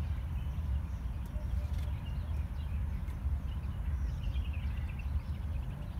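Outdoor background: a low, uneven rumble of wind on the microphone, with faint short bird chirps about four seconds in.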